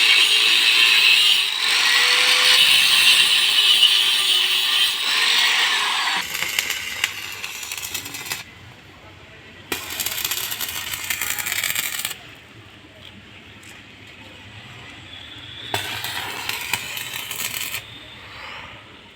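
Metalworking tools on steel: a loud, harsh, continuous noise for about six seconds, then three or four separate bursts of similar noise a couple of seconds each, each starting and stopping abruptly.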